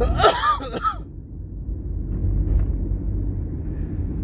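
Steady low rumble of a car's engine and tyres heard from inside the cabin while driving. A brief vocal sound comes in the first second.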